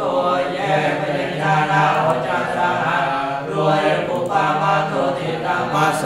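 A male voice chanting a Pali recitation in a sing-song cadence, on held notes that change every half second or so, with no pause.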